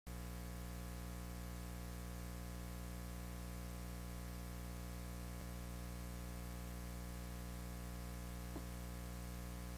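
Steady electrical mains hum, a low buzz with many overtones, with two faint clicks about five and a half and eight and a half seconds in.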